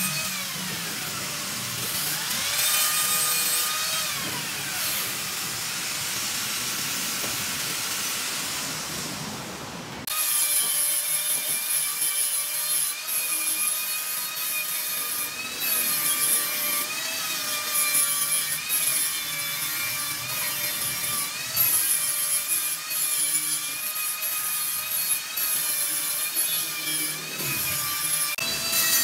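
Handheld angle grinder with an abrasive disc grinding stainless steel tubing. Its motor whine sags and recovers as the disc is pressed on and eased off the metal, and the sound changes abruptly about ten seconds in.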